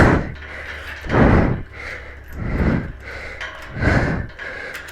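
A man breathing hard from exertion, with about four heavy, noisy breaths roughly one every second and a half.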